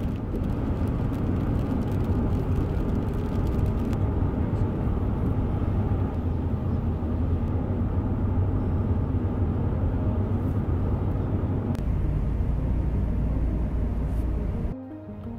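Steady rumble of a car on the move, heavy in the low end, which cuts off suddenly shortly before the end.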